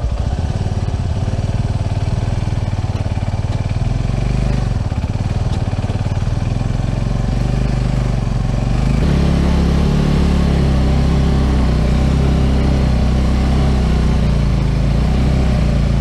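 Motorcycle engine running while riding, a steady drone that pulls louder and steadier about nine seconds in.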